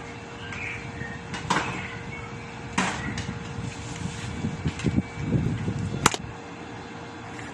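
Kitchen utensil sounds at a stainless steel pot: a wooden spoon knocking and scraping in the pot, with a few sharp knocks and a short stretch of clattering. A steady hum runs underneath.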